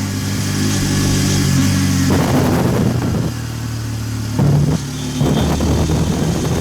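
Hero Xtreme 160R 4V motorcycle's single-cylinder four-valve engine pulling under acceleration while being ridden, its note shifting several times.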